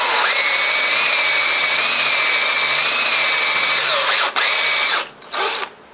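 Electric drill spinning a ball (flex) hone inside a small engine's cast-iron cylinder bore, running in reverse to deglaze the cylinder walls. It runs at a steady speed with a motor whine, drops out briefly a little after four seconds, then gives one short final burst.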